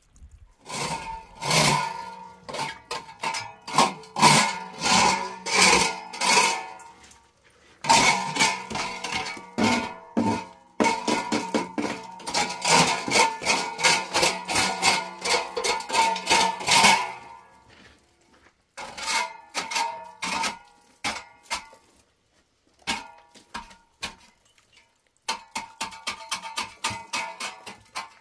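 Music on a plucked string instrument: fast rhythmic strumming in phrases, broken by short pauses.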